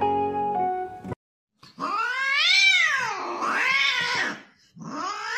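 Brief acoustic guitar music, then after a short break a long drawn-out cat meow that rises and falls in pitch, and a second one starting near the end. The meows are the recorded cat sound played to call a house cat.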